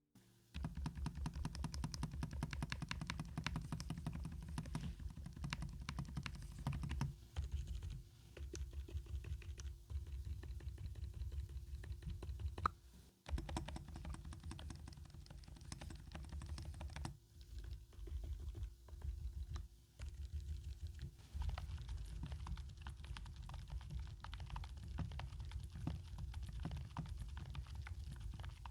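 Typing on an ABKO NTP84 low-profile membrane keyboard: a fast, continuous run of soft key presses, broken by a few short pauses.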